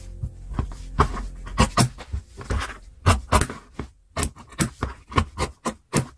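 Large tailor's shears cutting through cloth on a cutting mat: a run of sharp snips and clicks, a few a second, as the blades open and close.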